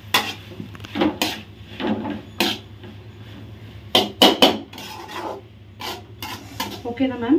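Steel ladle scraping and clinking against a stainless-steel kadai as fried rice is stirred, in irregular strikes about once a second, with a quick run of three around four seconds in.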